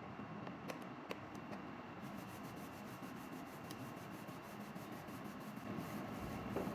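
Faint rubbing and scraping with a few light clicks as the plastic case of a Garmin GPSMAP 64st handheld GPS is handled and fitted back together.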